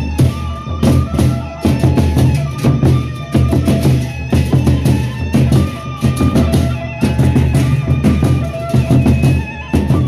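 Gendang beleq ensemble playing: big double-headed barrel drums beaten in a fast, driving rhythm under clashing hand cymbals, with short held pitched tones alongside.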